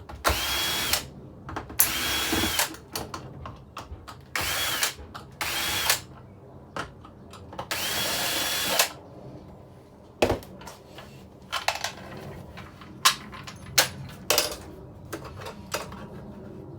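Power drill-driver backing screws out of a TV's casing in about five short runs, each a second or so long with a whine that rises as it spins up. After about nine seconds the drill stops and there are scattered clicks and knocks of screws and plastic parts being handled.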